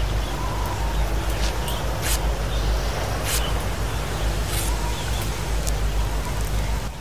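Open wood fire crackling, with a few sharp pops spread through, over a steady low rumble.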